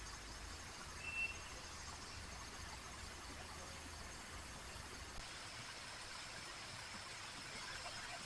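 Small stream flowing with a steady rushing trickle, under steady high insect trilling; one high insect note gives way to a lower one about five seconds in. A brief high chirp sounds about a second in.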